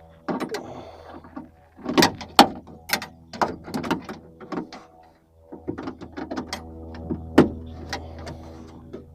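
Hand tools clinking, clicking and knocking against metal inside a 1988 Ford XF Falcon ute's door as the small 7 mm bolts holding a new door handle are worked on, in irregular sharp strokes. A steady low hum runs underneath and drops out for a moment about five seconds in.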